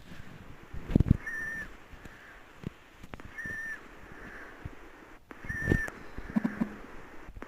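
A short, level high-pitched whistle note repeated four times, about every two seconds, each lasting under half a second, with low knocks and thumps in between.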